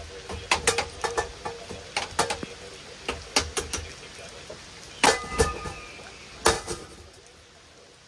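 Spinning ceiling fan blades clattering against a rod pushed up into them: a quick, irregular run of sharp knocks over a low hum. About five and six and a half seconds in come two harder strikes that ring briefly, and the hum has faded away by the end.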